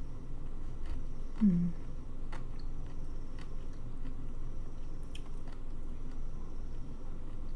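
A person chewing food close to the microphone, with small wet mouth clicks. About a second and a half in, a short low hum of the voice.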